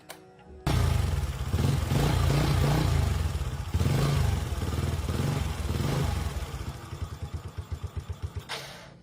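A motor or machine running loudly, starting suddenly, then breaking into a run of separate beats that fade out as it stops.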